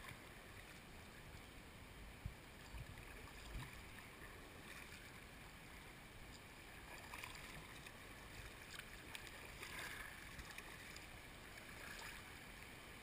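Faint kayak paddle strokes: a soft splash of the blade entering the water about every two seconds, over a low steady rush of the river, with a few light knocks in the first few seconds.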